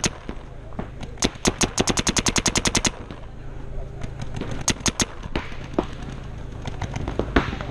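Paintball markers firing rapid strings of shots at about ten a second: one long burst lasting over a second and a half, then a few shorter bursts and single shots.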